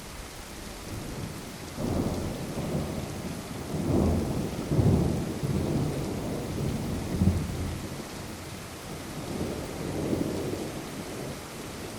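Rolling thunder over steady rain: a low rumble builds about two seconds in, swells in several surges over the next few seconds, and fades away after a last smaller swell near the end, with the rain's hiss throughout.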